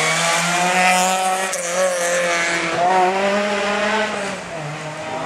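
Ford Focus rally car's engine revving hard as it accelerates past, its pitch rising and falling several times, then fading as it goes away.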